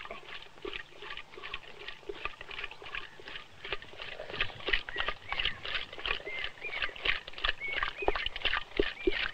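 A wooden churning stick worked in a pot of milk, giving quick irregular knocks and slaps. From about halfway, short high chirping squeaks join in.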